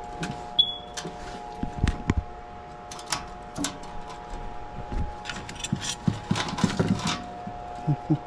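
Scattered clicks, taps and rustles from hands handling electrical wires and parts at an air handler, with the busiest cluster near the end. A steady hum runs underneath.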